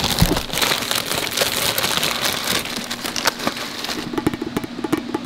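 Plastic packaging crinkling and rustling in dense, irregular crackles as it is pulled and torn off a new cast-aluminium intake manifold.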